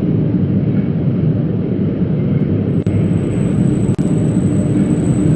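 Schindler passenger lift travelling between floors, heard from inside the car: a loud, steady low noise from the moving car, with a faint high whine joining about halfway through.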